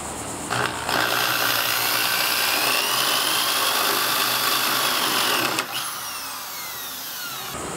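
Power drill with a spade bit boring a hole through a pine board. Its motor whines steadily for about four and a half seconds, then winds down with a falling pitch.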